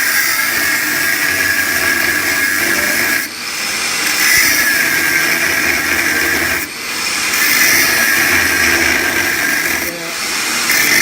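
Power tool cutting notches halfway into a 20 mm square steel bar at marks every 10 mm. It cuts in runs of about three seconds, with brief breaks between cuts.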